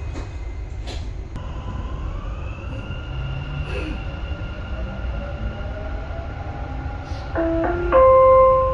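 Dubai Metro train pulling away from a station, heard from inside the carriage. There are two knocks in the first second, then a steady low rumble with a motor whine that rises in pitch as the train accelerates and then holds. Near the end, a three-note chime from the onboard announcement system is the loudest sound.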